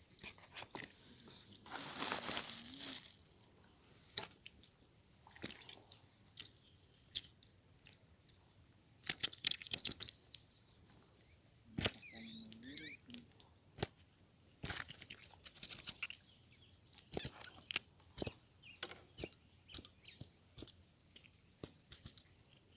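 Scattered sharp clicks and short rustles of close handling, with a short low bird call, like a dove's coo, about twelve seconds in.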